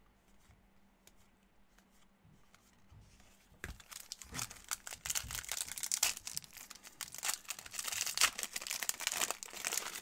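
A Topps Series 1 baseball card pack's wrapper being torn open and crinkled, starting about three and a half seconds in after a few faint ticks of handling.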